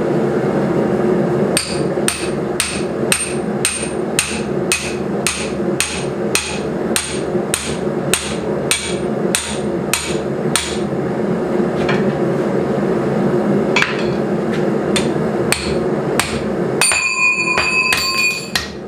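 Hammer striking a lubed steel drift through a hot punched hole: a fast, even run of about two blows a second for some nine seconds, then several slower single blows, and a bright ringing clang near the end.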